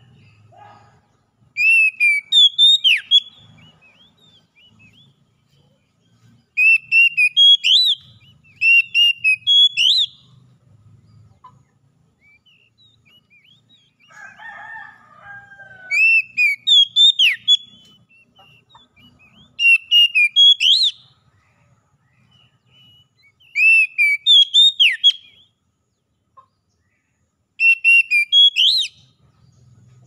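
Oriental magpie-robin singing: seven loud phrases of clear, sweeping whistled notes, each about a second and a half long, with pauses of a few seconds between them. A brief, lower chatter comes about halfway through.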